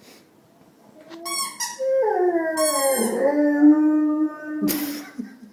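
Rottweiler howling: after a quiet second, a few high whiny yelps, then a long howl that slides down in pitch and holds low for a couple of seconds, ending in a short breathy burst near the end.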